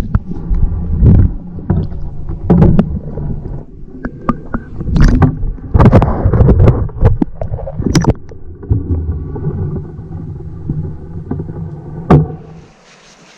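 Muffled underwater churning and rumbling heard through a submerged camera, with repeated knocks and splashes as a stringer of white suckers thrashes and bumps against it. The noise is loudest in the middle and drops off sharply near the end.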